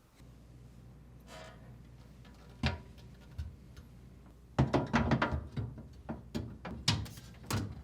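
Refrigerator shelves being fitted back into the cabinet's rear rails. There is a single knock, then from a little past halfway a quick run of clicks and knocks as the shelves are hooked in and tilted down.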